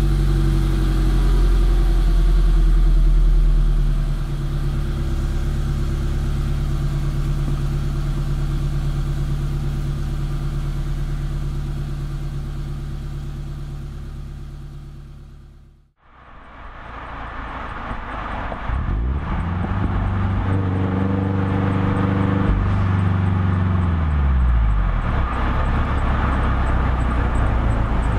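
Subaru BRZ flat-four boxer engine, with unequal-length headers and a Perrin resonated exhaust, heard from a bumper-mounted microphone. It idles after a cold start, dropping to a lower idle about four seconds in, then fades out. After a cut the car is driving: the engine note holds for a couple of seconds, then falls as the revs drop.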